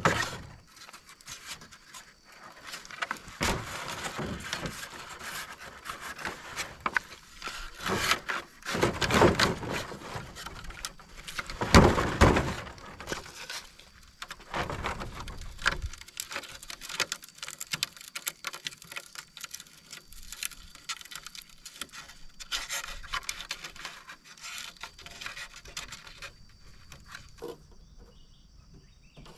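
Bamboo poles knocking and scraping as a binding is twisted tight around them to lash a raft: irregular scrapes and clicks, with louder stretches about nine and twelve seconds in.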